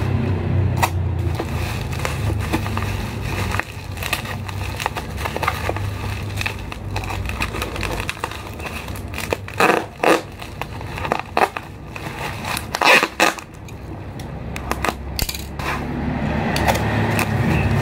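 Clear packing tape being pulled off its roll and pressed onto a black plastic-wrapped parcel, with the plastic crinkling and rustling under the hands. A few louder rasps of tape come about ten and thirteen seconds in, over a steady low hum.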